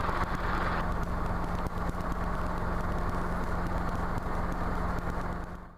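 Robinson R22 helicopter's piston engine and rotors running steadily, heard from inside the cockpit, with a constant low hum; the sound fades out quickly near the end.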